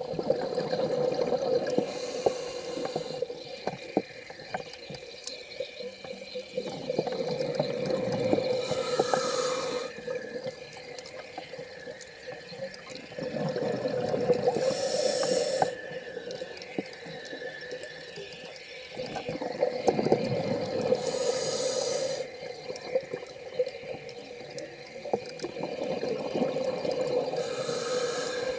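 Scuba diver breathing underwater through a regulator: about five slow breath cycles, each a rush of exhaled bubbles and a short, sharp hiss of the regulator, with quieter pauses between, over a steady low hum.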